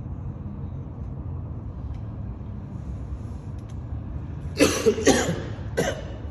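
Three loud coughs in quick succession, about four and a half seconds in, over a steady low rumble.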